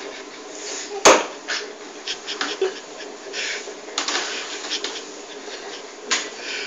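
A string mop is lifted out of a plastic spin-mop bucket and pushed across a tiled floor. There is a sharp knock about a second in, then a series of short wet swishes and scrapes.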